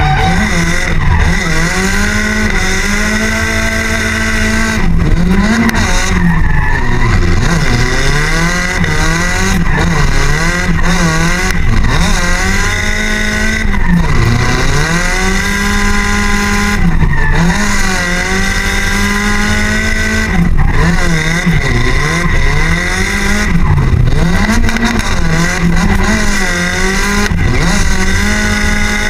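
Nissan 180SX drift car's engine held high in the revs, its pitch dipping and climbing back every second or two as the throttle is worked. The tyres screech under it through continuous drifting.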